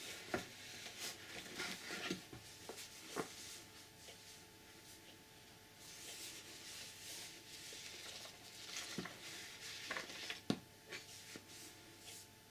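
Paper and cardboard rustling and scraping as a user's manual is lifted and slid out of its cardboard box, with a few short soft knocks, the sharpest about ten and a half seconds in.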